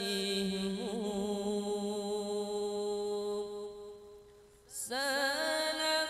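A solo male voice sings an Arabic salawat qasidah without accompaniment, holding long notes with melismatic ornaments. The phrase fades out about four seconds in, and after a short breath a new phrase begins with a wavering, ornamented line.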